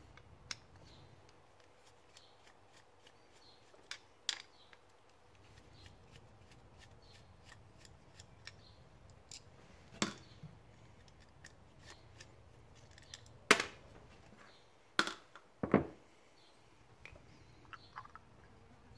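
Scattered light clicks and taps of small tools and metal carburettor parts being handled while the float is taken off the carburettor, with a few louder knocks close together about three-quarters of the way through.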